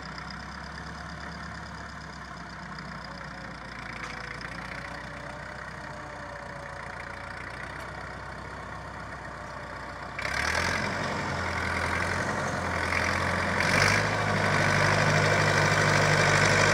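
Massey Ferguson 65 tractor engine running steadily as the tractor pulls a harrow across tilled ground, distant at first. About ten seconds in it jumps louder and keeps getting louder as the tractor comes close.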